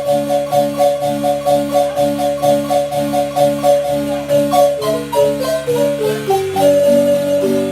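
Marimba playing a repeating, evenly pulsed figure over a bass line. About five seconds in, it breaks into a descending run of notes that lands on a held note.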